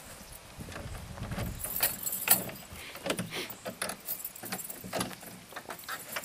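Footsteps on the ground, then a bunch of keys jangling and clicking against a door lock in a run of sharp clicks and knocks as a wooden shed door is unlocked; the door is pulled open near the end.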